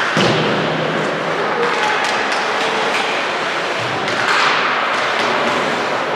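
Game ambience in a large echoing hall: a steady crowd murmur with scattered sharp knocks and thuds from the play.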